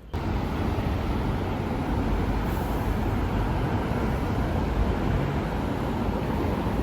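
Steady rumble of a moving vehicle, continuous and even throughout.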